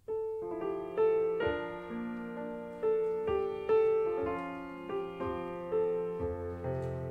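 Piano starts a slow closing postlude, its notes and chords struck every second or so and left to ring.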